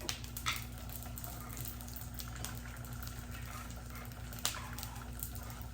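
Broth heating in an electric hot pot: a steady low hum under a faint even haze of simmering, with a few soft clicks, one about half a second in and a sharper one near the end.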